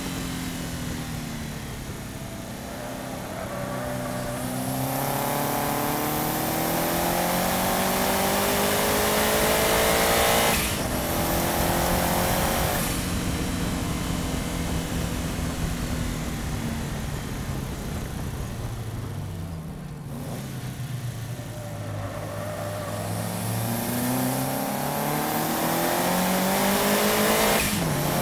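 Subaru Impreza's flat-four engine, heard from a bumper-mounted camera, pulling hard through the gears: the revs climb, drop sharply at an upshift about ten seconds in, climb briefly again, then fall away slowly as the car slows, before rising once more to another sharp upshift near the end. Steady road and wind noise runs underneath.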